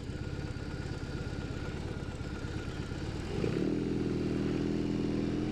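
BMW R18's big boxer twin idling with a steady pulsing beat, then revving up about three seconds in and holding the higher revs as the bike pulls away.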